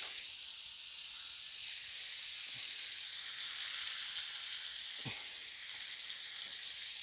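Cheese and butter sizzling steadily in a square grill pan on a gas burner, with one soft knock of a utensil against the pan about five seconds in.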